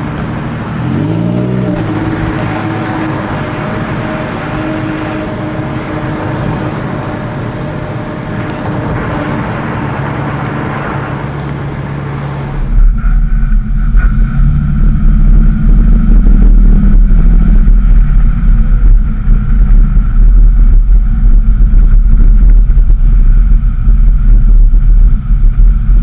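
Porsche 911 (996) flat-six engine running as the car drives on the road, its pitch rising and falling with the throttle in the first seconds. About halfway through it turns much louder, with a deep rumble, picked up by a camera on the rear engine lid.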